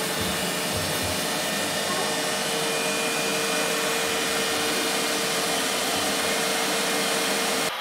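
Steady rushing noise of a small motor-driven air-moving appliance, with a constant hum, cutting off abruptly near the end.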